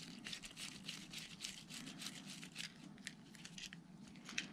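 Faint, irregular scratchy ticks and small metal clicks as a screwdriver works the screw on the handle of a Shimano Calcutta 100XT baitcasting reel.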